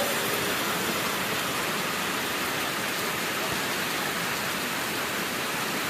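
Steady pouring rain, an even hiss with no breaks.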